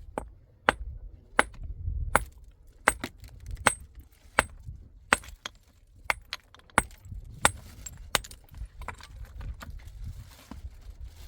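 A steady run of sharp, short knocks, about three every two seconds, over a low rumble.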